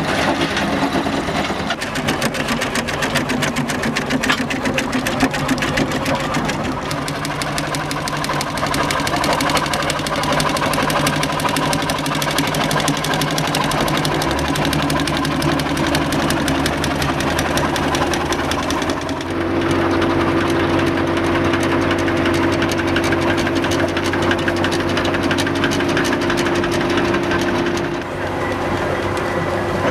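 A steam road roller and then a steam traction engine running slowly past, with a fast, even mechanical clatter from their moving parts over a steady engine tone. The tone changes about two thirds of the way through.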